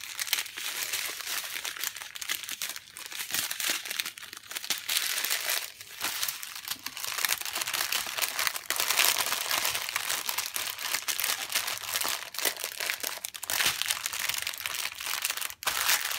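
Plastic packaging crinkling steadily as it is handled, a dense run of rustles and crackles.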